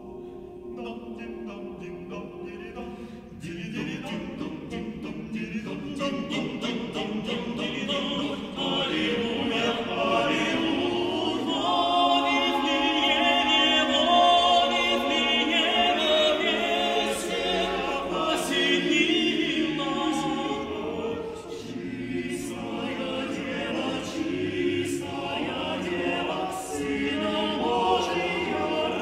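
Male vocal ensemble of nine voices singing a cappella, a Christmas carol in close harmony, growing louder a few seconds in and fullest around the middle.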